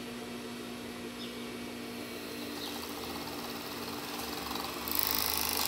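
Kingsew industrial overlock machine (serger) sewing a side seam in stretch fabric: the motor hums steadily, and the stitching gets louder and more hissy about five seconds in as the machine runs up to speed.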